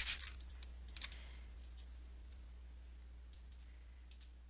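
Faint, scattered clicking of a computer mouse and keyboard, several clicks in the first second and then only a few, over a steady low hum.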